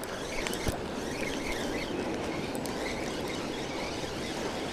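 Spinning reel being cranked, winding in a hooked striped bass, over steady wind and surf noise.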